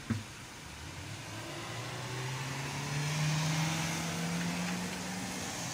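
A motor vehicle's engine running nearby, its pitch climbing slowly as it grows louder toward the middle and then easing a little near the end, with a short knock right at the start.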